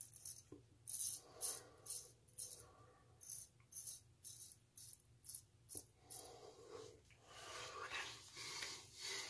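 Straight razor scraping over lathered stubble in short, quick strokes, about two a second, in touch-up passes on the neck and cheek. About six seconds in the strokes give way to a softer, continuous rubbing of a hand over the freshly shaved skin.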